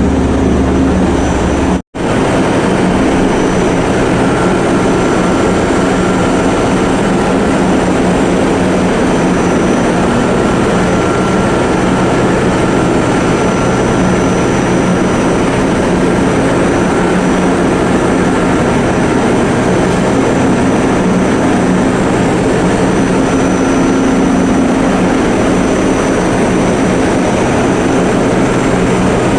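Loud, steady machinery drone with a few faint steady tones running through it, from the ship's engines and deck machinery. It cuts out for an instant about two seconds in.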